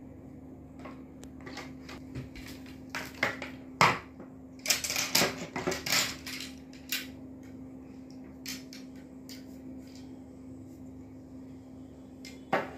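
Fishing rod sections clicking and knocking against a wooden tabletop as they are laid down, handled and picked up. The knocks are thickest about three to six seconds in, with one more sharp knock near the end.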